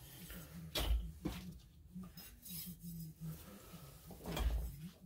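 Metal parts being handled at a machine vise: scattered clinks and knocks, with a dull thud about a second in and another near the end.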